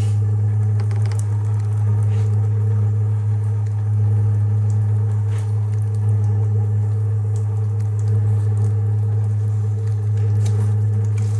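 Diesel-fired combination water heater and furnace running steadily: a loud, even low hum from its combustion fan and pump, with a few faint clicks.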